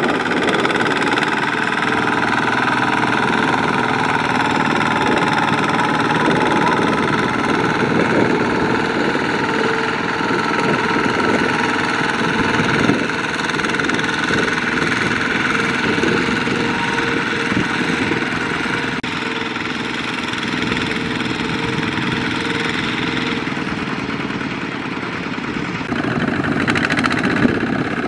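Kubota ZT140 single-cylinder diesel engine of a two-wheel walking tractor running steadily under load, pulling a trailer of rice sacks through sticky mud with its wheels clogged.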